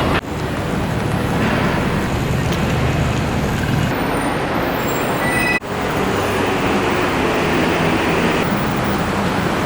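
Road traffic noise: a steady rush of passing cars and buses, broken by two abrupt cuts.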